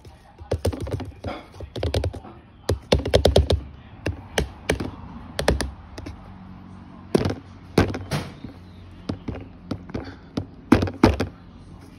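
A small plastic rearing cup being knocked and tapped against a plastic tub and the sawdust substrate to empty it: irregular sharp taps and knocks in clusters, densest about three seconds in, with soft scraping between them.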